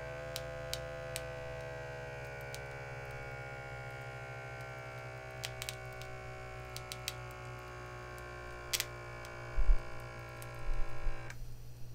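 Small electric air pump of an upper-arm blood pressure monitor running steadily as it inflates the cuff, its pitch slowly dropping as the cuff pressure climbs, then stopping abruptly about eleven seconds in when inflation ends. A few light knocks come shortly before it stops.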